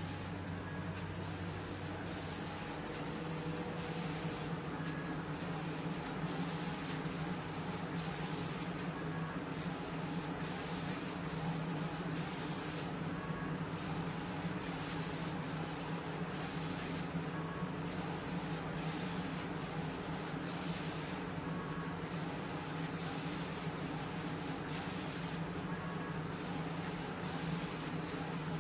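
Automatic spray guns on a reciprocating spray-painting machine hissing steadily as they atomise paint over a rack of microphone bodies, over a steady low machine hum. The high hiss thins out briefly about every four seconds.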